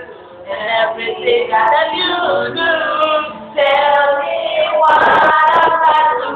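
A young man singing a pop song live into a microphone, his high voice bending from note to note, then holding a loud sustained high note about five seconds in.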